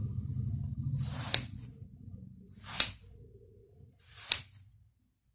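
A knife blade slices down through a packed block of kinetic sand three times, about a second and a half apart. Each cut is a gritty hiss that builds to a sharp click.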